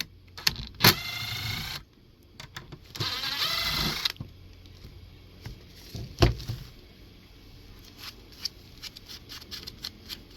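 Self-tapping screws being driven into the plastic skull in two short runs of about a second each, with a wavering whine. Then come light clicks of handling and a single sharp knock about six seconds in.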